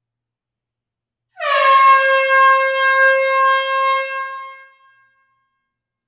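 One long blast of an air horn, starting about a second in: a brief dip in pitch at the onset, then a steady tone that fades out after about three seconds.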